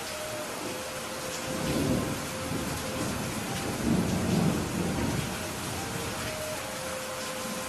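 Steady rain falling in a thunderstorm, with thunder rumbling twice: once about two seconds in and again, louder, around the middle.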